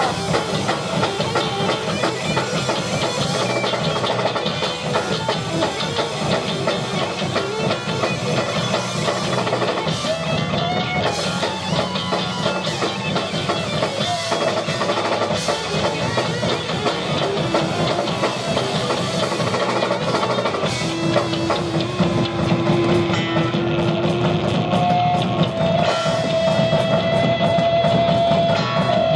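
Live rock band playing: electric guitars and a drum kit through the PA. In the last several seconds a guitar holds long single notes over the band.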